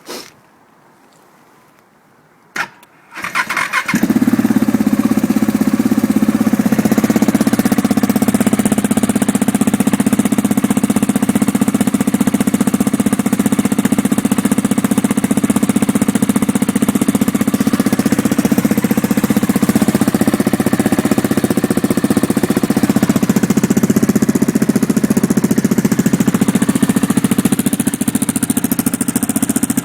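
KTM 690 SMC R's single-cylinder engine through a Mivv Suono exhaust with the dB eater fitted: after a couple of clicks it cranks briefly, catches about three and a half seconds in, and settles into a steady idle.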